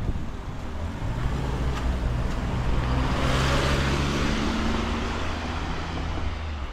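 A motor vehicle passing close by: a low engine hum with tyre and road noise that swells to a peak about three and a half seconds in, then fades.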